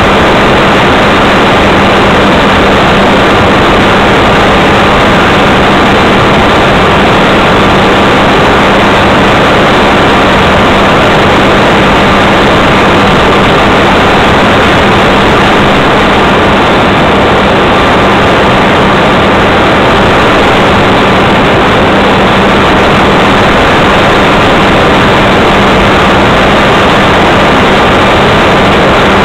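Radio-controlled model aircraft's motor and propeller, heard from a camera on board in flight: a loud, unchanging drone with a steady hum and a steady higher whine, mixed with rushing air.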